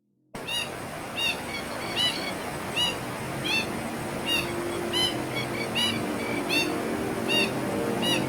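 A bird calling a short, arched note again and again at a very regular pace, about every three quarters of a second, over a steady rushing background noise.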